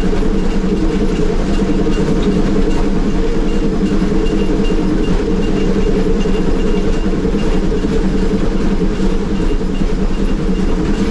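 Steady, loud running noise of Baldwin K-36 2-8-2 narrow-gauge steam locomotive No. 482, heard from inside its cab while under way.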